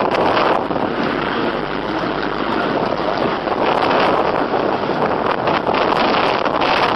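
Steady, loud rush of wind buffeting the microphone, with no pitch to it, swelling and easing slightly from moment to moment.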